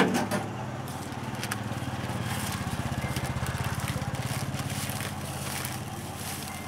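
A sharp knock, then a small engine running with a fast low pulse that swells over a couple of seconds and fades again.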